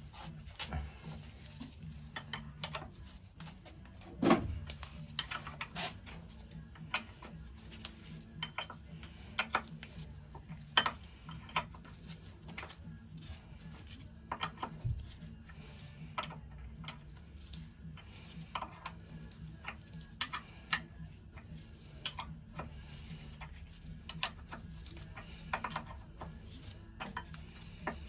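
Irregular metallic clinks, clicks and taps of a hand spanner working a seized bolt on an old Lister stationary engine. A louder knock comes about four seconds in and another about eleven seconds in.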